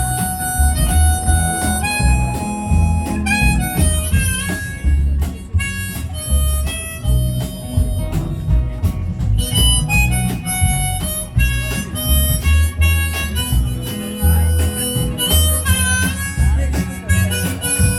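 Instrumental break in a folk-country song, played on a harmonica lead of held and bending notes over bass guitar, drums and strummed guitar.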